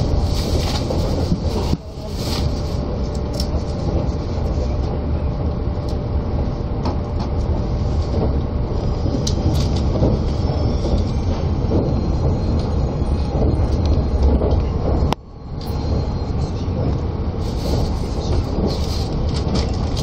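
Limited express electric train heard from inside the passenger cabin while running at speed, a steady rumble of wheels on rail and running gear. The noise drops away briefly twice, about two seconds in and about three quarters of the way through.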